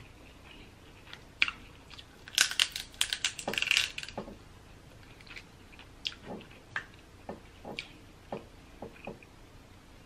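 Snow crab leg shells cracked and snapped apart by hand: a quick flurry of cracks from about two and a half to four seconds in, then scattered single snaps and clicks.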